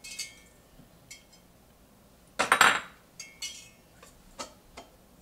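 A metal utensil clinking and scraping in a stainless steel mixing bowl as mashed bananas are stirred together with oats for cookie dough. There are scattered light clinks, with one louder cluster of knocks and scrapes about two and a half seconds in.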